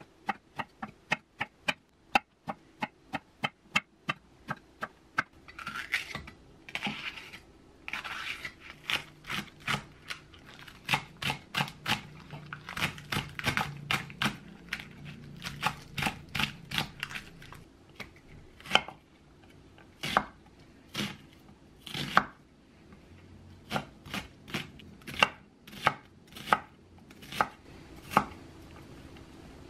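Kitchen knife chopping vegetables (eggplant, green onion and onion) on a wooden cutting board: a series of sharp knocks of the blade on the board, quick and even at first at about three a second, then in uneven runs with short pauses.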